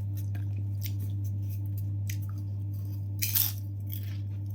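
Close-up eating sounds: faint crunches and clicks of chewing, with one louder crunch about three seconds in, over a steady low hum.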